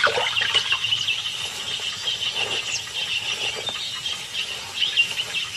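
A steady chorus of high, rapid chirping calls from small wild animals, with a few brief rising whistles over it.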